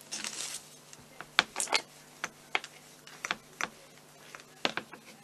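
A short rustle, then a string of light, irregular clicks and knocks from hands and tools working on a plastic sugarcraft board.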